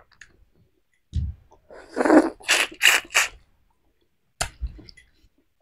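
Cracked shell of a boiled half-incubated chicken egg being picked off by hand: a dull knock, then a run of about four short crackling, rustling bits, and a sharp click near the end.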